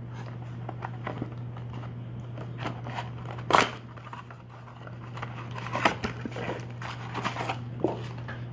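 Cardboard trading-card blaster box being opened by hand and its wrapped card packs slid out: rustling and crinkling with a few sharp snaps, the loudest about three and a half seconds in.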